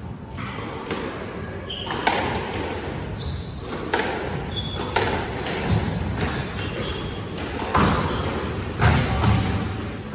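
Squash rally: the ball cracks off rackets and smacks the front wall and glass about once a second, with short squeaks of court shoes on the hardwood floor between hits.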